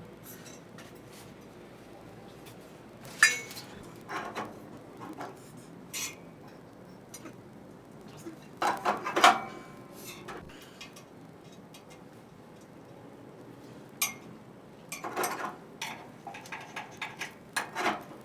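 Metal grill parts clanking and clinking as legs are fitted to a pellet grill: irregular sharp metal knocks and clinks, loudest about three seconds and nine seconds in, with clusters near the end.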